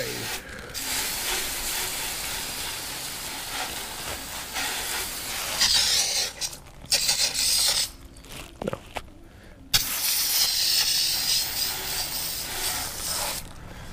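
Garden hose spray nozzle jetting water onto a motorcycle's front brake disc and caliper, rinsing off soaked-in degreaser: a steady hiss that breaks off briefly twice partway through and stops near the end.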